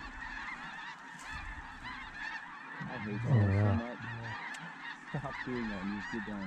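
Snow geese calling en masse: a dense, continuous chorus of overlapping high yelping honks.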